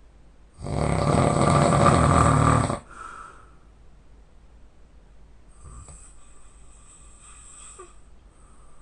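A man snoring loudly in his sleep: one heavy snore starting about half a second in and lasting about two seconds, then a much quieter breath a few seconds later.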